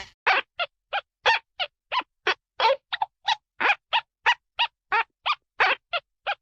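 A cartoon sound effect of short animal-like calls repeated about three times a second, each one brief and pitched.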